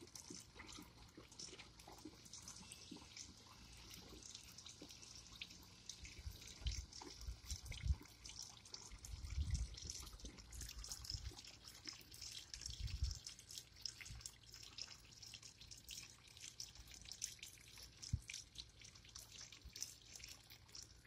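Water pouring from a plastic bucket into the plastic tank of a 2-gallon battery sprayer: a faint, steady trickle and splash. A few dull low bumps come in the middle.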